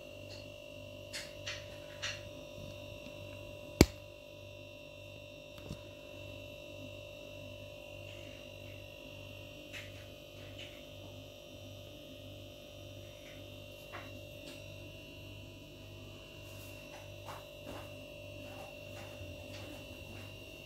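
Steady electrical hum with a low, evenly pulsing tone underneath, broken by a few light clicks and one sharp click about four seconds in.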